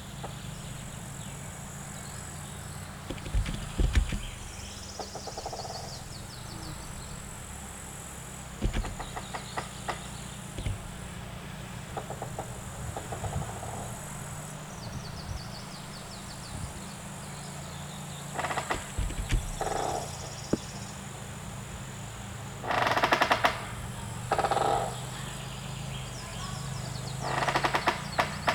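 Forest ambience: a steady high buzz that fades in and out over a low rumble, with scattered clicks and chirps. Several short, louder rustling bursts come near the end, the loudest about two-thirds of the way through.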